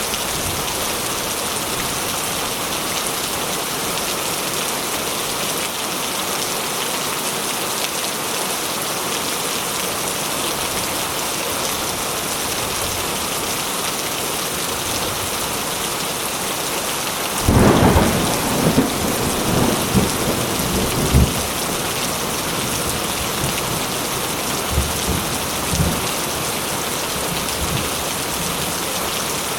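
Steady, heavy rain falling throughout. A little past halfway a sudden loud thunderclap breaks in and rumbles and crackles for a few seconds, with a couple of fainter rumbles later.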